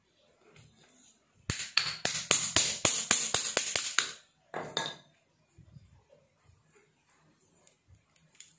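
A hammer tapping on a steel shaft and cast-iron pillow-block bearing assembly. There are about a dozen quick, ringing metal blows, about four a second, starting about a second and a half in and lasting nearly three seconds. A short scraping rattle of metal follows.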